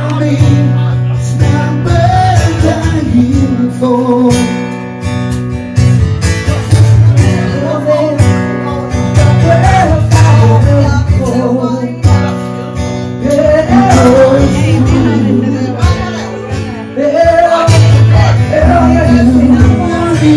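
Band music: a singer over strummed guitar, a steady bass line and drums, played loud.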